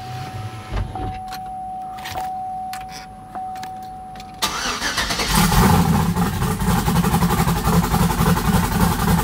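Chevrolet Silverado's twin-turbo 5.3-litre V8 being started from inside the cab: a steady high tone and a few clicks as the key is switched on, then about four and a half seconds in the engine cranks, catches and settles into a steady idle.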